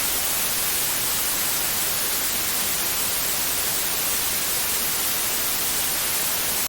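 Loud, steady, hissing TV-style static that is strongest in the high end, as when a broadcast signal breaks up. It cuts off suddenly at the end.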